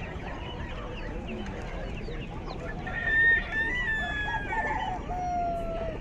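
A rooster crowing once: a long call that starts about halfway through, is loudest at its start and ends lower in pitch. It sits over a background of many short calls from smaller birds.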